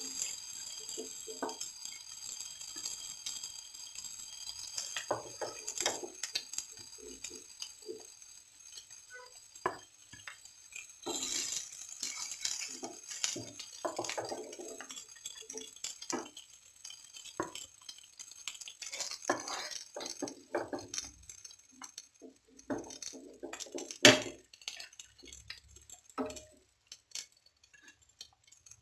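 Wooden spatula scraping and knocking in a nonstick frying pan as fried fish pieces are lifted out, with clinks against a plate; irregular scrapes and taps, one sharper knock near the end.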